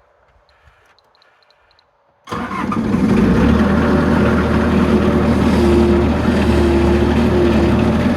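Faint for about two seconds, then a machine's motor comes in suddenly and runs steadily and loudly with a low hum.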